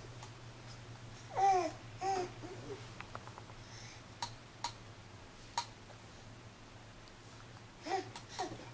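Infant babbling in short vocal bursts, twice near the start and again near the end. In between come a few sharp clicks of plastic toys being handled, over a steady low hum.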